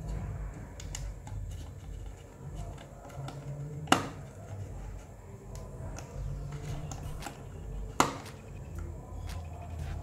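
Light plastic clicks and taps from a Logitech MX Vertical mouse's shell being handled and screwed back together with a small screwdriver, with two sharp, loud clicks about four seconds in and again about eight seconds in.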